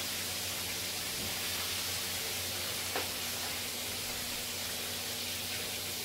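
Chicken frying in hot oil in a pot: a steady sizzling hiss over a low steady hum, with one short sharp tap about halfway through.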